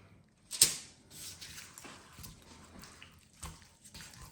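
Knife cutting through a raw chicken's leg-thigh joint on a cutting board: a sharp knock about half a second in, then soft, wet cutting and handling sounds with a couple of lighter knocks near the end.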